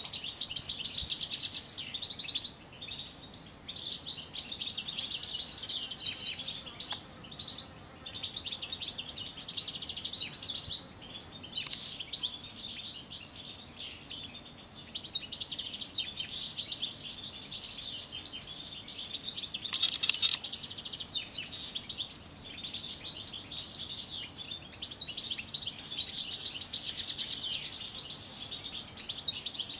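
European goldfinch song in an aviary: fast, twittering, chattering phrases, nearly continuous with a few short breaks.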